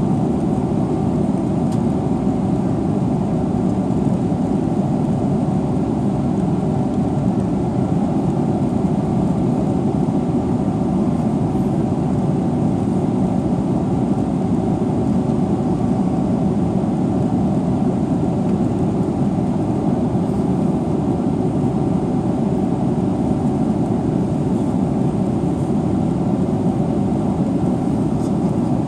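Steady cabin rumble inside a Boeing 777-300ER airliner: an even, unbroken drone of air and machinery noise with a faint steady hum above it.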